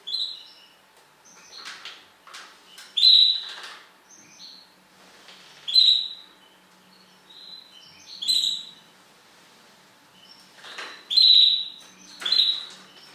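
A small songbird calling: short, sharp, high chirps that fall slightly in pitch. The loud ones come about every two to three seconds, with fainter calls between.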